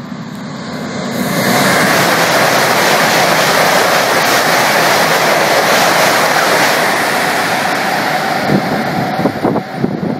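High-speed train passing at speed: a loud rush of air and wheel noise swells about a second in and holds, with a few sharp knocks near the end.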